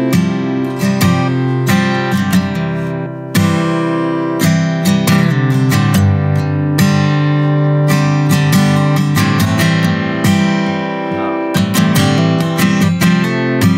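Studio playback of an acoustic guitar strumming chords, recorded with Soyuz 017 condenser microphones and played back with a strong high-shelf EQ boost around 12 kHz that exaggerates the bright top end.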